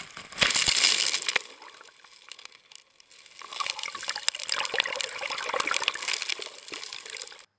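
Shallow surf washing over: a wave splashes loudly about half a second in and dies away. From about three and a half seconds a crackling, fizzing rush of churning, foamy water builds, then cuts off suddenly near the end.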